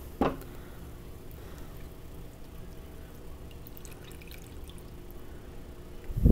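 Chicken broth poured from a carton into a skillet of raw steaks, a faint steady trickle of liquid, with a dull thump near the end.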